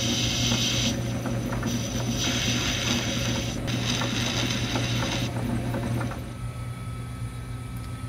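Metal lathe running with a steady motor hum while a turning tool cuts a brass shaft in three hissing passes, each a second or two long. About six seconds in the cutting stops and the lathe is shut off and spins down.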